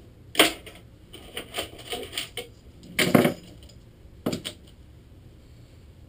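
A string of sharp clicks and small clattering knocks from objects being handled at a desk. The loudest comes about three seconds in, and there is a last one a little after four seconds.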